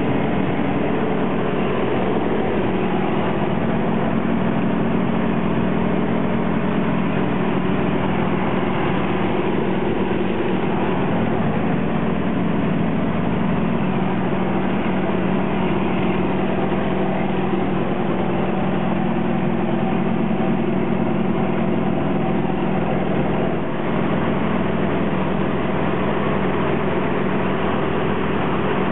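Yak's radial engine and propeller droning steadily in cruise flight, heard from inside the cockpit.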